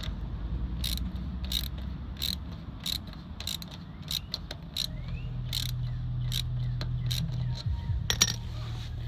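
A ratchet clicking in a slow, even rhythm, about one and a half clicks a second, while a valve stem is being tightened into a wheel rim. A low steady hum comes in about halfway through.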